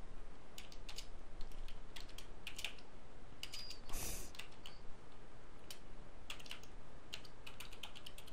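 Typing on a computer keyboard: irregular runs of several quick keystroke clicks with short gaps between them. There is a brief hiss about four seconds in.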